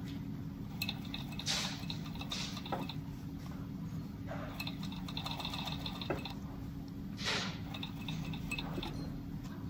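Zoyer ZY988-3D overlock (merrow) sewing machine running as it stitches the edge of a perforated shoe upper: a steady hum with light clicks and a few short hissing rushes.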